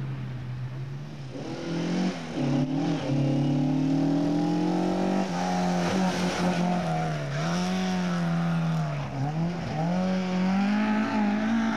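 Rally car engine revving hard as the car passes and pulls away, its note climbing and then dropping back several times as the driver changes gear and lifts for the bend.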